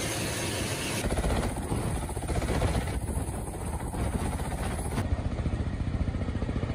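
Military helicopter rotor noise: a steady hiss for about the first second, then an abrupt switch to a deep, rapid beat of rotor blades with engine noise, changing again abruptly about five seconds in.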